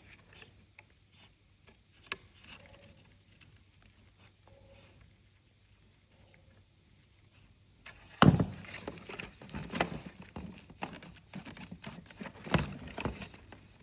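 Clicks and knocks of hands working a hose off a fuel pump. A few faint clicks come at first; about eight seconds in there is a sharp knock, followed by a busy run of clicks and rattles.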